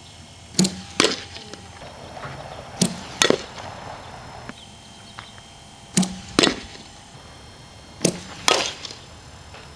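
Sharp cracks of softballs being struck in practice: four pairs, the two cracks in each pair about half a second apart, with a new pair every two to three seconds.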